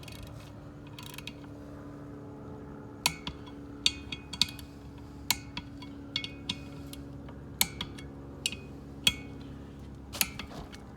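Click-type torque wrench being worked on a Weld beadlock wheel's bolts: about a dozen sharp metallic clicks and clinks at irregular intervals, starting about three seconds in, over a steady low hum.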